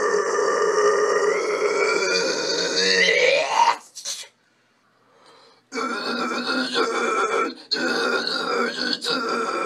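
A man's harsh screamed metal vocals without backing music: one long held scream that rises in pitch at its end, then, after a pause of about two seconds, two more screamed phrases.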